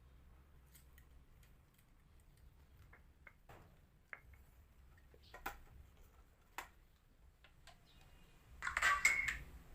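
Scattered small clicks and taps from handling the wire connections on a small amplifier and speaker. Near the end, music starts playing loudly through a Broadway 4-inch hi-fi speaker driven by a HUG amplifier.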